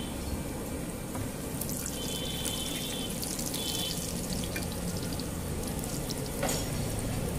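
Oil sizzling and crackling on a hot iron tawa as a paratha shallow-fries under a flat metal spatula, with one sharp knock near the end.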